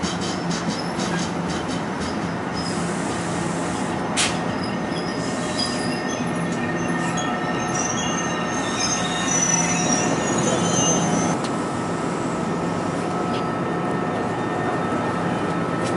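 Trains rolling past on steel rails: a steady rumble of wheels on track, a quick run of clicks at the start and a single sharp click a few seconds in. In the middle comes several seconds of high-pitched wheel squeal.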